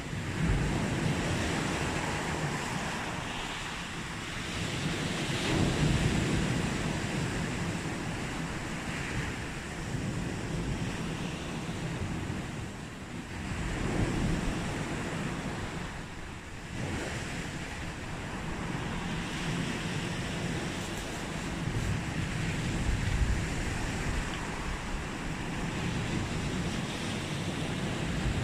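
Sea waves breaking and washing up on a beach, the surf swelling and easing every several seconds.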